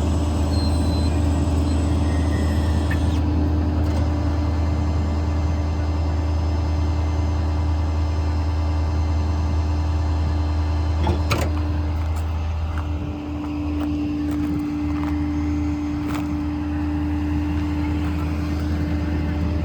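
The 2013 Ford F550's 6.7 Power Stroke diesel running steadily with a low hum. A steady whine sits over it and steps slightly higher in pitch about thirteen seconds in. There is a single sharp click about eleven seconds in.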